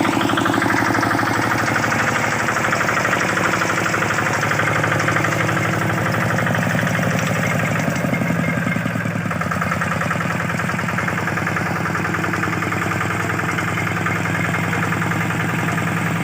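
Kubota single-cylinder diesel engine of a two-wheel hand tractor running steadily, with a fast, even firing beat.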